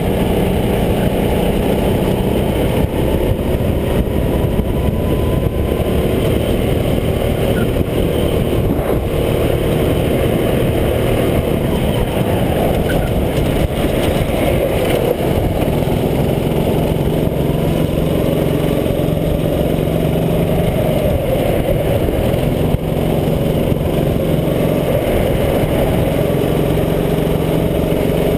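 Go-kart engine running hard, heard from on board the kart, its note rising and falling as the throttle is worked through the corners.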